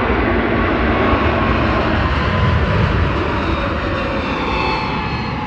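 Airbus A321neo's twin turbofan engines at takeoff thrust: a loud, steady jet roar with faint whining tones that slowly fall in pitch, easing a little near the end.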